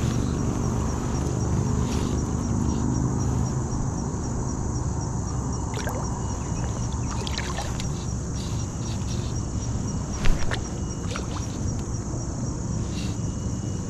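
Steady rush of flowing river water, with a few light clicks and one sharp knock about ten seconds in.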